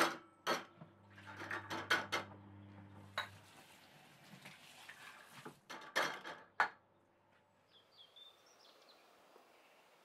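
Ceramic plates and a bowl clinking against each other and a wire dish rack as they are set down, with a string of sharp clinks through the first seven seconds, then quiet.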